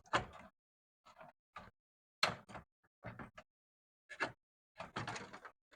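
Irregular sharp clicks and knocks, with a short clatter near the end: plastic and metal parts of a Harman/kardon AVR100 receiver being handled and worked loose during disassembly.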